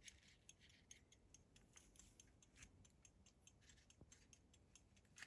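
Faint, quick, even ticking of an early 18th-century verge fusee pocket watch running, several ticks a second.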